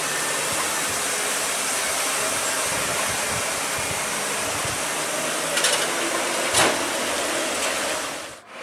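Steady rushing noise of rain and a loaded Mitsubishi Fuso dump truck rolling slowly down a wet road, with two short knocks in the middle. The sound drops out briefly near the end.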